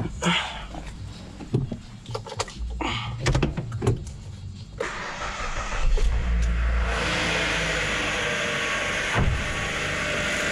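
A few clicks and knocks, then the Kia Ceed's 1.6 G4FC four-cylinder petrol engine is started about five seconds in. It is briefly louder as it catches, then settles into a steady idle. It is running evenly, without the earlier misfire, after its ignition coils and spark plugs were replaced.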